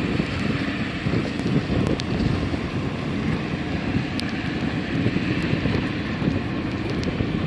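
A Boeing 757's twin jet engines at takeoff power, heard from a distance as a steady low rumble, mixed with wind buffeting the microphone.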